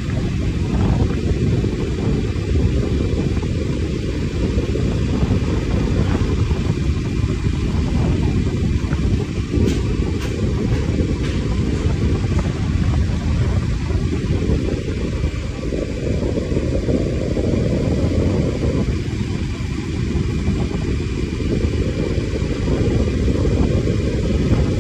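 Wind rumbling on the microphone of a moving vehicle travelling along the road, a low noise that swells and eases, with the vehicle's running and road noise underneath.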